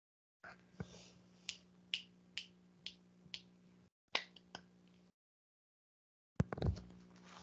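A run of sharp clicks or taps, about two a second, over a steady low electrical hum, heard through a video-call microphone that cuts in and out. A louder thump comes near the end.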